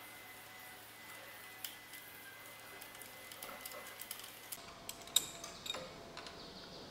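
Faint scattered metal clicks and ticks, more of them in the second half, from a T50 Torx key being worked on a motorcycle's frame bolt above the kickstand. A faint steady hum lies underneath.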